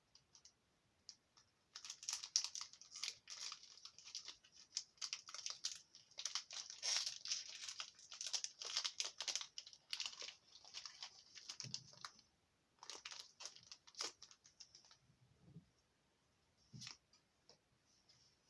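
Plastic Pokémon booster pack wrapper crinkling and being torn open: a dense run of crackling for about ten seconds, then a few shorter bursts and a couple of soft low thumps.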